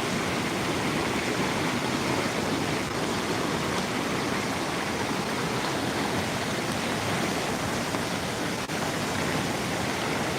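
Floodwater rushing and flowing steadily.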